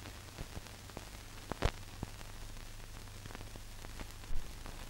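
Surface noise of a 1930s film soundtrack: steady hiss over a low hum, with a few scattered clicks, the sharpest about a second and a half in and another near the end.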